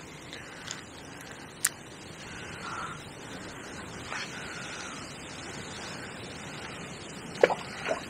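Steady outdoor wind noise with faint bird calls. A few sharp clicks of fishing tackle being handled come about a second and a half in and twice near the end, and the pair near the end is the loudest.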